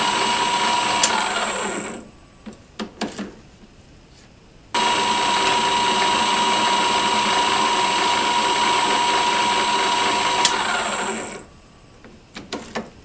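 A variable-frequency-drive metal lathe running with a steady high whine. It spins down about two seconds in, a few sharp clicks and knocks follow, then it starts abruptly and runs again before winding down near the end, with more clicks after it stops.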